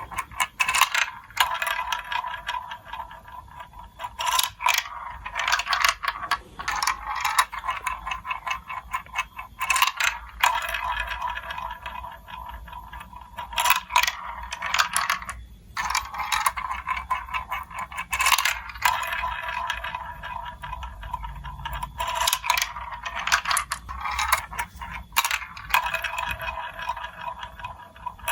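Marbles rolling and clattering through a plastic building-block marble run: a steady rolling rattle broken by many sharp clicks as they drop and strike the track pieces.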